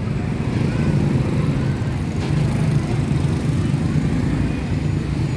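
Steady low engine rumble of nearby road traffic, with faint voices in the background.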